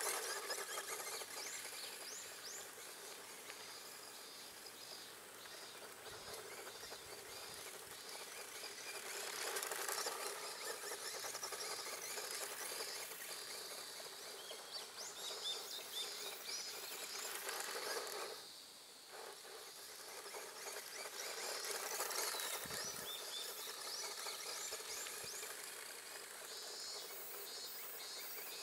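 Tamiya Grasshopper RC buggy running on gravel, the noise of its electric motor and tyres rising as it passes close and fading as it drives off, several times over. Birds chirp throughout.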